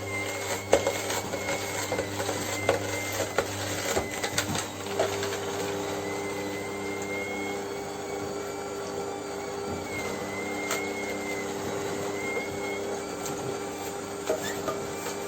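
Cold-press slow juicer's electric motor running with a steady hum and a faint wavering whine, with scattered clicks and knocks during the first five seconds or so.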